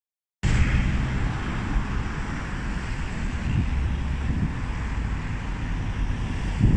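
Wind buffeting a phone's microphone, a heavy uneven rumble, over a steady hum of distant traffic.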